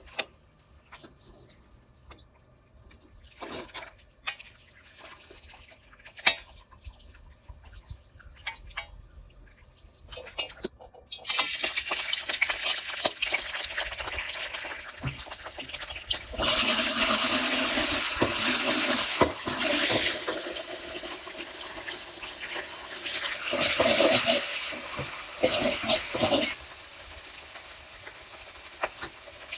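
Scattered clicks and knocks, then about eleven seconds in a steady sizzling hiss starts, louder for about ten seconds in the middle and dropping back near the end: eggplant frying in plenty of hot oil.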